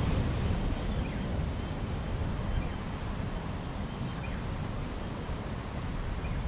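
Wind blowing across the microphone outdoors: a steady, low rush of noise with no distinct events.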